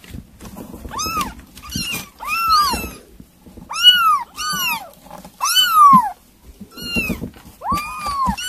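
Young kitten meowing over and over: about eight short, high calls, each rising then falling in pitch, less than a second apart.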